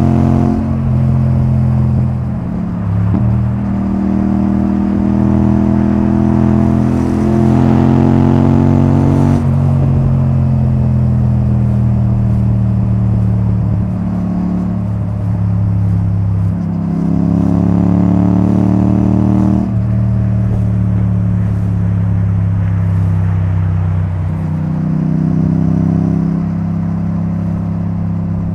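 2024 Yamaha XSR700's CP2 parallel-twin engine running through a debaffled Akrapovic titanium exhaust while riding. It pulls with rising pitch and drops off suddenly as the throttle is closed about nine and a half seconds in. It pulls again and drops off near twenty seconds, then makes a shorter pull near the end.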